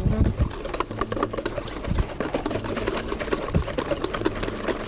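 A utensil beating a thick cream cheese and labneh mixture in a stainless steel bowl, scraping and clicking against the metal in a rapid, uneven stream of strokes.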